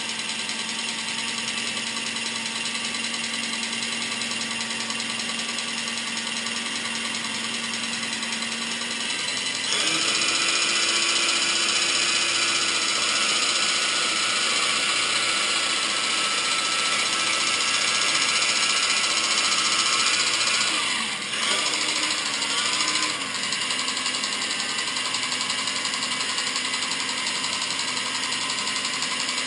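Blade 120 SR micro RC helicopter's electric motor and gear train running with a rattle, a rattle that is itself the fault being shown. The speed steps up about a third of the way in, dips briefly twice about two-thirds of the way in, then holds steady.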